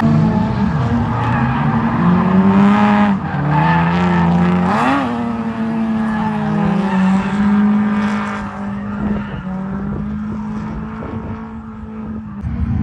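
Drift car engine held at high revs, its pitch stepping up and down with the throttle, with a sharp rev blip about five seconds in, over tyre squeal.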